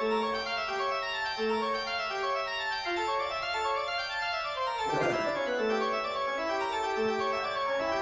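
Background music: sustained keyboard chords changing in steps, with a falling sweep about five seconds in.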